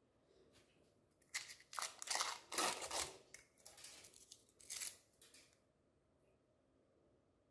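Packaging being crinkled and torn open in a run of short crackly rustles, starting about a second in and stopping a little past halfway.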